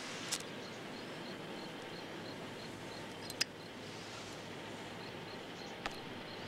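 Steady outdoor wind-and-surf ambience with three sharp metallic clicks about three seconds apart, from a cigarette lighter being flipped open and struck.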